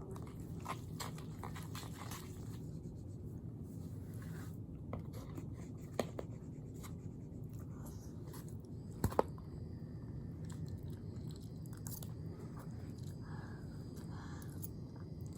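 Steady low hum of room tone with a few soft clicks and taps, the sharpest about six and nine seconds in.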